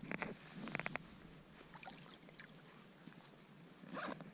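Water sloshing and splashing around a pike being drawn in on the line in shallow lake water, with two short clusters of sharp clicks in the first second and a louder rush of splashing near the end.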